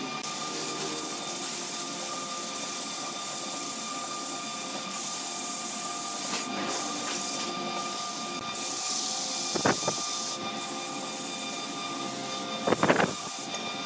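Sandpaper pressed against a large wooden turning spinning on a lathe: a steady hissing rasp over the lathe's running hum, starting suddenly at the outset. Two brief louder scrapes, one about ten seconds in and one near the end.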